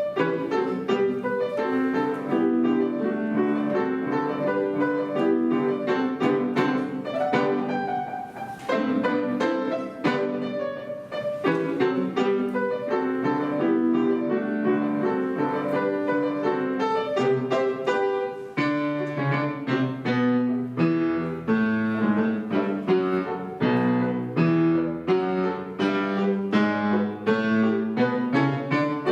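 Piano duo playing a lively piece with rapid, rhythmic chords and runs, and a bass line that becomes more prominent about two-thirds of the way through.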